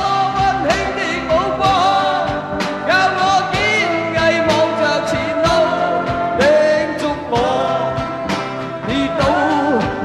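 Live unplugged band performance: a man singing a Cantonese pop-rock ballad into a stage microphone over strummed acoustic guitars, with steady strokes all the way through.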